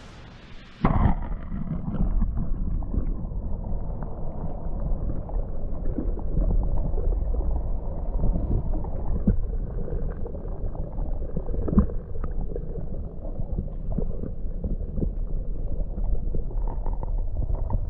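Muffled underwater rumble and gurgling, as heard by a camera held beneath the water's surface, with a few faint knocks. There is a short quieter gap in the first second.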